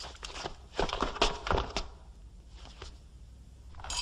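Footsteps on a hard floor: several short thuds and taps in the first two seconds, then faint room tone.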